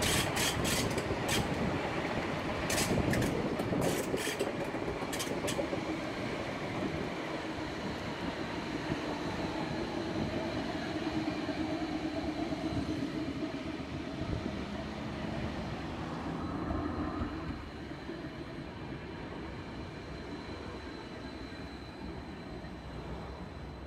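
Bergen light rail tram rolling along the track, a steady rumble with a run of sharp clicks in the first few seconds. It grows quieter about two-thirds of the way through as the tram slows into a station.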